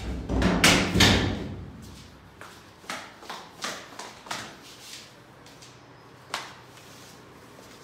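Footsteps going down hard tiled stairs. A couple of loud thumps come in the first second, then separate steps about every half second, with a last one near the end.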